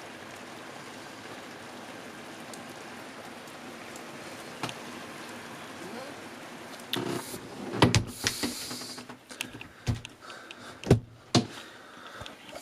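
Steady hiss of rain, then from about seven seconds in a run of irregular knocks and clatters, the sharpest three about a second apart.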